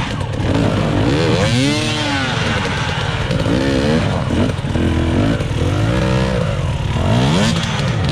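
Two-stroke enduro motorcycle engine revved up and down again and again, each rev rising and falling in pitch. The bike is under load, being worked up a steep rocky climb.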